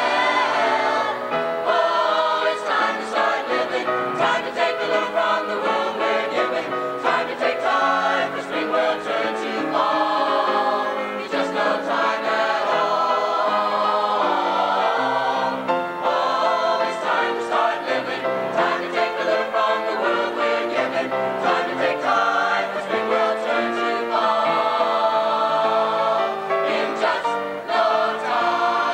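High school mixed-voice choir singing a song together, a full, continuous chorus of male and female voices.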